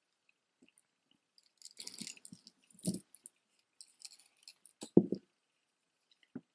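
Metal chain necklaces and costume jewelry jingling and clinking as a necklace is pulled out of a tangled heap, with two heavier clunks, about three and five seconds in, and a single click near the end.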